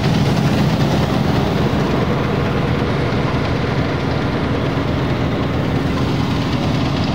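Heavy engine of wheat-harvesting machinery running steadily at a constant pitch, with a loud low hum.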